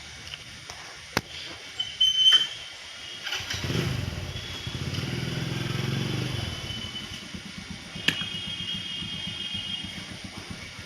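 A small engine, motorcycle-like, comes in about three seconds in, runs loudest through the middle and carries on more faintly. A few sharp clicks come before it, and high bird chirps sound over it.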